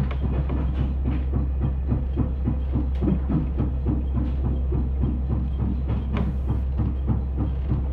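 Diesel railcar running slowly into a station, heard inside the cab: a steady low engine drone with frequent clicks and rattles from the wheels and car body.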